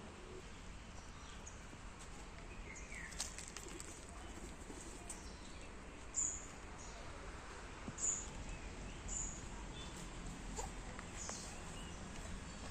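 Birds chirping: short, high chirps come every second or two over a steady outdoor background hiss, with a few faint clicks.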